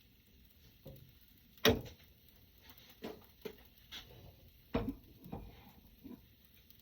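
Kitchen handling noises: a series of separate knocks and clunks, the loudest about two seconds in.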